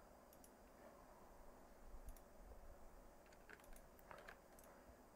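Near silence with a few faint, scattered computer clicks, several of them in quick pairs.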